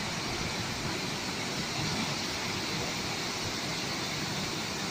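Steady rushing roar of a large waterfall, an even noise with no break or change.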